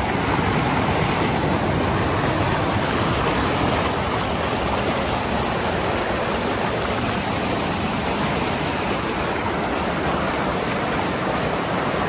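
Fast mountain river rushing through white-water rapids over boulders: a steady, loud wash of water noise.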